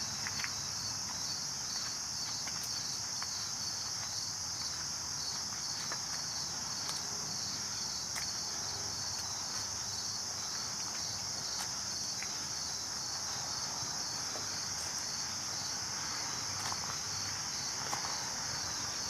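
Steady, high-pitched drone of a summer insect chorus, with a fine rapid pulsing and a few faint ticks over it.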